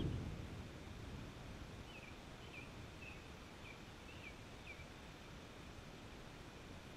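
A low thunder rumble dies away in the first second over steady outdoor background noise. From about two seconds in, a bird sings a string of short chirps, about two a second, for some three seconds.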